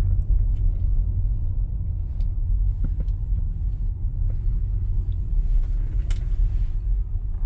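Steady low rumble of a car, with a few light clicks.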